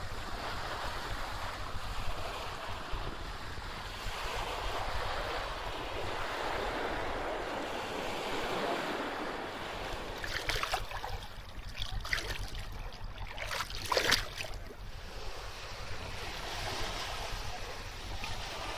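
Sea waves surging and washing onto a beach in a rising and falling wash, with wind rumbling on the microphone. Several short, sharp crackles stand out about ten to fourteen seconds in.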